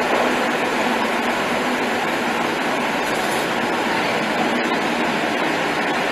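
Madrid Metro train running along an underground station platform and slowing to a stop, a steady rushing noise of its wheels on the rails.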